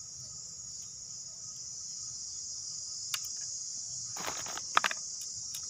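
Steady, high-pitched drone of insects. A little past four seconds in, a short burst of rustling and sharp clicks stands out above it, with a single click shortly before.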